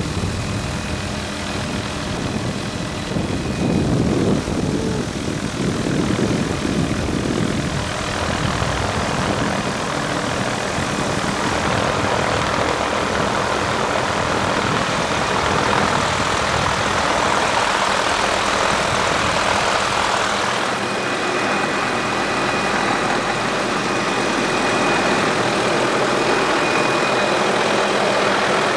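Helicopter rotor and engine heard from inside the cabin with the door open as it descends to land. A strong low throb dominates for about the first eight seconds, then gives way to a steady rushing sound with a thin high whine that is plainest near the end.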